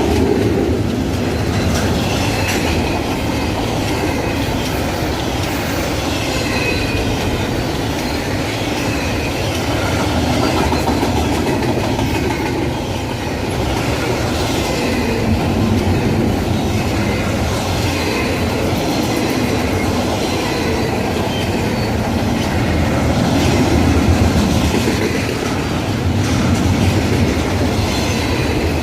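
Freight train of container and autorack cars rolling past, with steady wheel-on-rail rumble, repeated clacks as the wheels cross rail joints, and intermittent high wheel squeal.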